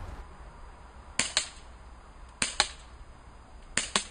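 Three shots from a Remington 1911 RAC CO2 blowback BB pistol, about a second and a quarter apart, each sharp crack followed about a fifth of a second later by a second crack as the BB strikes the window glass.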